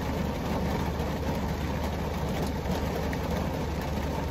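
Heavy rain drumming on a car's roof and windows, heard from inside the cabin, over a steady low hum.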